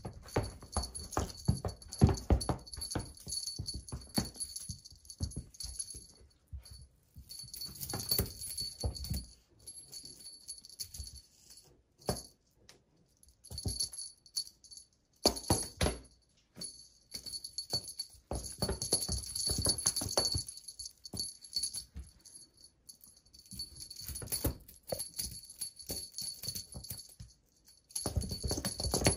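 Small bell on a cat wand toy jingling in irregular bursts as the toy is shaken and batted, with soft knocks and rustles from handling, and short quiet gaps between the bursts.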